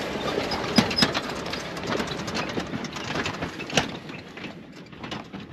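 Jeep Wrangler towing a small trailer driving slowly past over a dirt and snow track: engine running with tyres crunching and scattered clicks and knocks. It fades as the Jeep pulls away, growing faint near the end.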